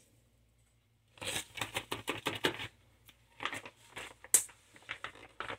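Quick clicks and rustles of kitchen items being handled on a counter, in two short runs, with one sharper click near the middle.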